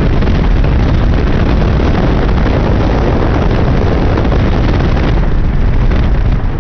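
Wind rushing and buffeting on the microphone of a moving vehicle, over the vehicle's rumble of engine and road; the upper hiss eases slightly about five seconds in.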